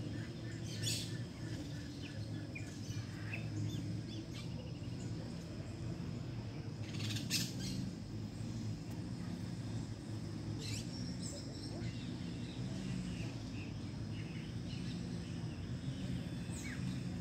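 Saffron finches giving short, high chirps now and then: one about a second in, a louder one around seven seconds, a couple around eleven seconds and one near the end. A steady low hum runs underneath.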